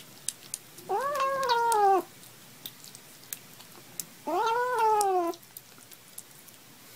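A kitten meowing twice, each call about a second long, rising and then falling in pitch.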